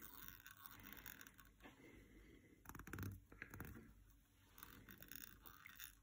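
Faint scraping and rustling of fingers handling tying thread and a bobbin holder while dubbing goes onto the thread at a fly-tying vise, with a slightly louder scrape about halfway through.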